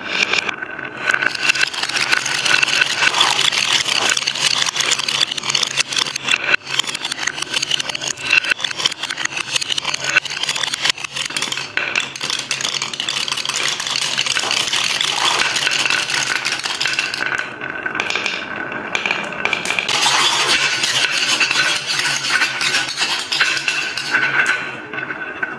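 Many glass marbles rolling along wooden wave-slope tracks and down a wooden spiral tower, clacking against the wood and each other: a dense, continuous rolling rattle full of quick clicks.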